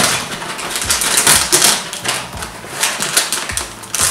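Plastic and foil blind-bag packets and toy packaging rustling and crinkling as a hand digs through a bin of them, a dense run of crackles.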